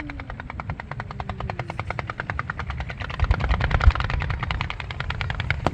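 Fireworks going off in a rapid, evenly spaced string of pops, about ten a second, with deep booms about halfway through and a sharp bang at the very end.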